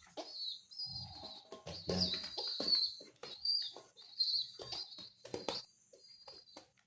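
Young domestic pigeon squab, about two months old, giving repeated high, wavering squeaky begging peeps while being hand-fed, with scattered short clicks and soft bumps of handling in between.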